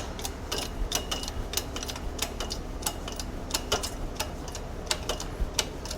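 Irregular light clicks and ticks, two or three a second, from tools and parts being handled at a shop press while A-arm bushings are pressed in.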